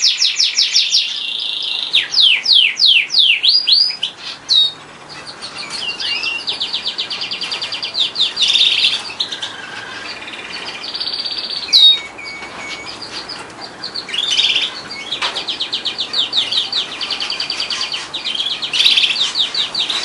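Frill canary singing a long song of fast trilled rolls and rapidly repeated notes, with a run of quick downward-sweeping whistles about two to four seconds in and one loud upward-swept note about twelve seconds in.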